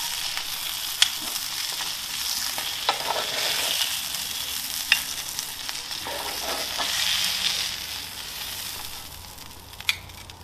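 Salmon fillets sizzling on the hot flat plate of a Weber Baby Q gas barbecue, with a few sharp clicks of metal tongs. The sizzle dies down near the end as the fillets are lifted off the plate.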